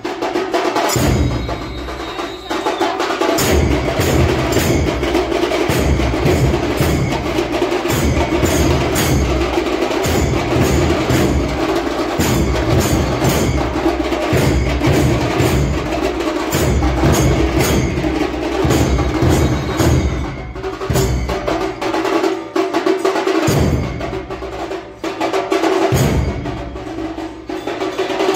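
Loud percussion music: drums pounding with a sharp clacking beat on top and a held tone underneath. The low drums drop out briefly twice in the second half.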